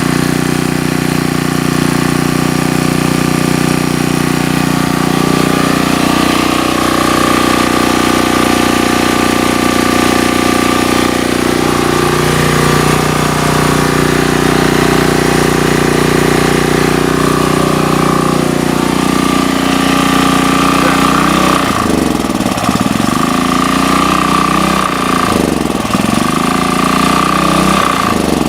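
Sportsman GEN2000 portable generator's small four-stroke engine running steadily, its pitch shifting a couple of times, with the sound wavering in the last several seconds.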